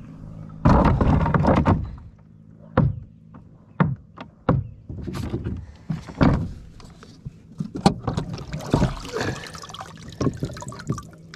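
Knocks and clatter on a plastic pedal-drive fishing kayak: a long loud scraping thump about a second in, then a string of sharp single knocks and rustling as a clump of weeds is worked up through the pedal-drive well.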